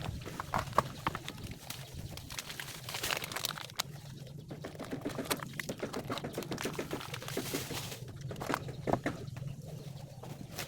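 Birds cooing, with scattered clicks and knocks over a low steady hum.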